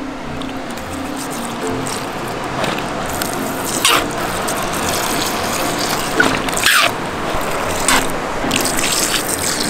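Background music over a steady hiss of water squirting from a foam pool-noodle water squirter into a small plastic tub, with a few sharper splashes.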